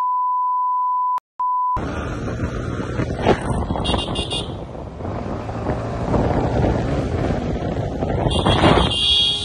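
A steady, pure beep tone laid over the sound, like a censor bleep, breaks off for a moment a little over a second in and returns briefly before cutting off sharply. Then street traffic noise follows, with vehicles running and wind on the microphone.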